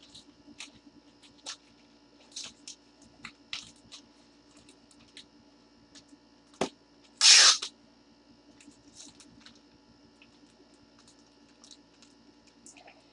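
Gloved hands handling a trading card and a clear plastic card holder, with scattered soft rustles and clicks. A sharp click comes about six and a half seconds in, followed at once by a brief, loud scraping rush, the loudest sound here.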